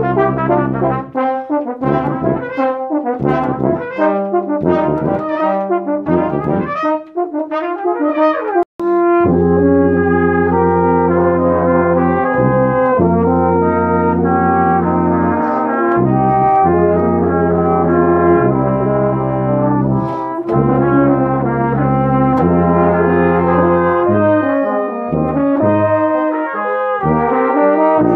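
Brass ensemble playing: short, detached notes at first, then, after a sudden brief break about nine seconds in, long sustained chords over a low bass line.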